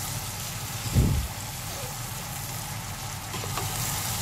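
Chopped sausages and vegetables frying in a pot, a steady sizzle, with a single dull thump about a second in.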